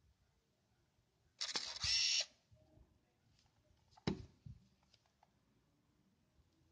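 Olympus AZ-1 Zoom compact film camera: a click about a second and a half in, then its small electric motor whirs for under a second and stops sharply. A couple of seconds later there is a single sharp knock and a few light clicks as the camera body is handled.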